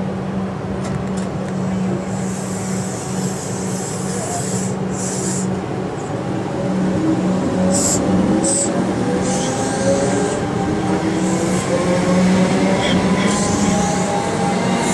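Electric suburban train pulling out of the platform, over a steady hum. About halfway through, its traction motors start a whine of several tones rising together as it picks up speed.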